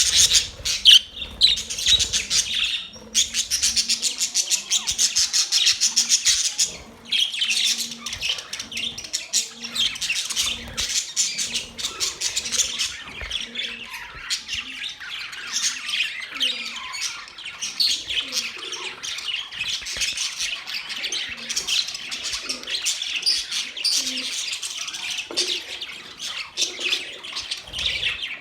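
A flock of pet budgerigars chattering and chirping without a break, many quick high chirps overlapping, dipping briefly twice early on.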